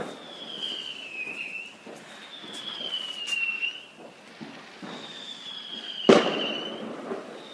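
Whistling fireworks of the Dutch 'gillende keukenmeid' (screaming kitchen maid) kind give four falling whistles in a row, each lasting about a second and a half. A firework bang sounds at the start, and a louder bang comes about six seconds in.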